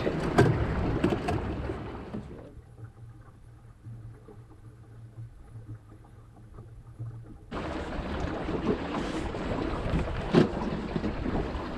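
Wind buffeting the microphone and water rushing along a Wanderer sailing dinghy's hull while it moves along on a beam reach. About two and a half seconds in this drops abruptly to a much quieter stretch with only a faint low hum, and the wind and water noise returns suddenly about five seconds later.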